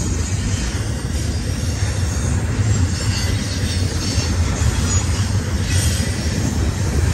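Double-stack intermodal well cars of a freight train rolling past, a steady rumble of steel wheels on the rails.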